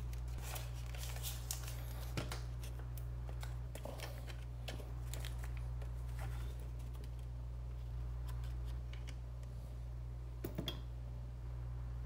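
Handling noise as blue painter's tape is laid and smoothed by hand onto a bare circuit board: scattered light taps, clicks and short rustles, with three quick clicks about ten and a half seconds in, over a steady low hum.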